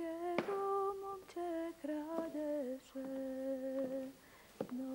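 A woman humming a slow melody of long held notes, sliding slightly between them. A short knock sounds about half a second in and another near the end.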